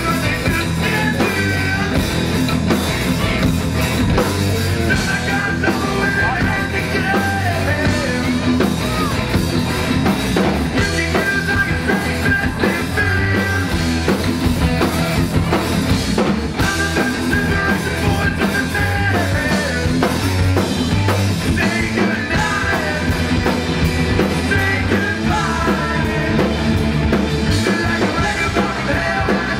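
Live rock band playing at full volume: electric guitar, electric bass and drum kit, with a steady, dense sound and no breaks.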